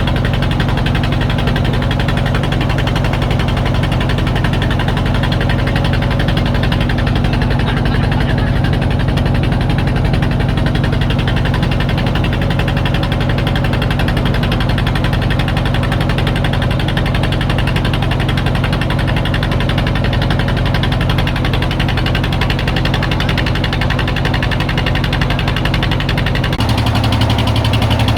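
An engine running steadily at an even speed, its pitch shifting abruptly near the end.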